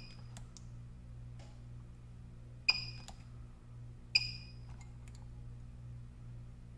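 Two sharp snaps about a second and a half apart, each with a short high ring: a PCB spot welder firing through thick copper needles to weld nickel strip onto 18650 cells. Lighter ticks of the needles being set on the strip come between them.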